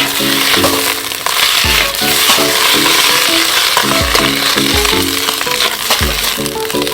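Food sizzling as it fries in an iron wok over a campfire, with background music that has a steady beat.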